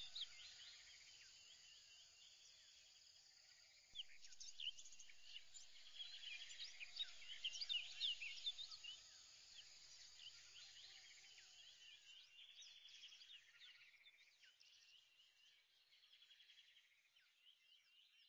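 Faint chorus of many small birds chirping, dense short calls overlapping, thinning out and fading in the last few seconds.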